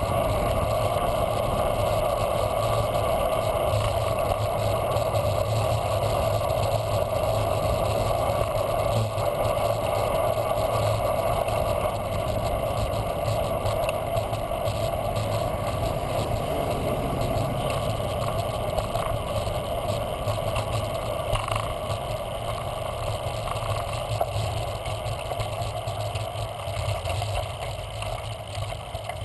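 Steady rush of wind and tyre noise picked up by a handlebar-mounted camera on a moving bicycle. It eases off near the end as the bike slows.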